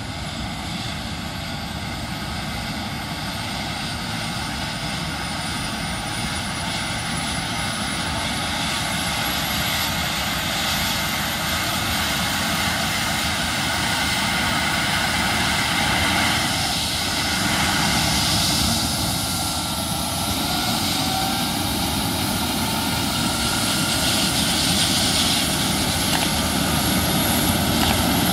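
Eurocopter EC135 police helicopter starting up on the ground. Its turbine engines whine at a pitch that climbs steadily, and the main rotor spins up, the whole sound growing gradually louder.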